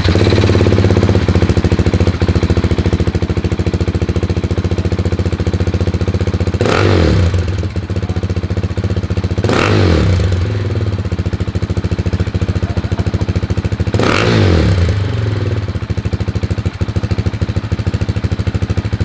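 KTM 690 SMC-R's single-cylinder engine idling through an Arrow Race-Tech exhaust with a carbon end cap, with three short throttle blips: about a third of the way in, about halfway, and about three quarters through.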